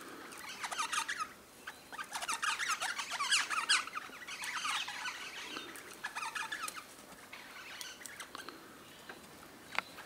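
Birds chirping and twittering in repeated bursts of quick, short high notes, with brief lulls between the bursts.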